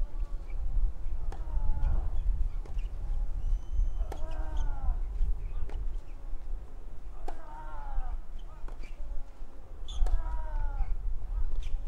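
Tennis rally: racket strikes on the ball about every one and a half seconds, and with four of the strokes a player lets out a loud grunt that falls in pitch. A steady low rumble runs underneath.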